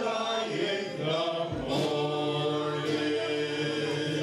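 Live band with mandolin, guitar and drums holding a long closing chord, the voices singing it together. There is one drum hit about a second and a half in.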